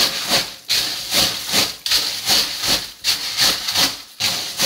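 Freshwater snails (dasulgi) being scrubbed by a gloved hand in a stainless steel bowl: a rhythmic scraping swish of the shells grinding against each other and the bowl, about two to three strokes a second.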